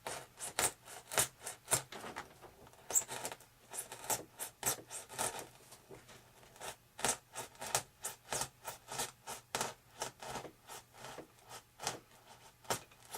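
A hobby knife blade sawing back and forth deep into the wing material, a run of short scraping strokes at roughly two a second, pausing briefly about halfway through.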